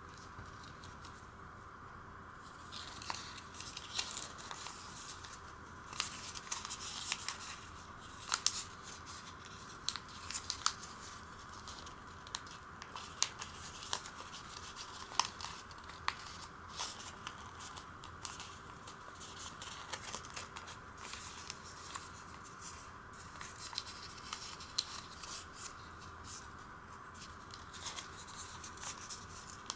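Origami paper rustling and crackling as it is folded, creased and pressed open by hand, in scattered crisp crinkles that pick up after a couple of seconds.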